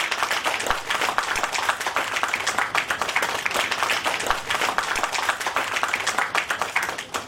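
An audience applauding: many hands clapping steadily, dying away near the end.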